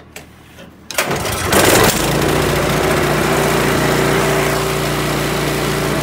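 Toro 621 QZR single-stage snow blower engine started about a second in. It catches at once with a brief louder burst, then runs steadily.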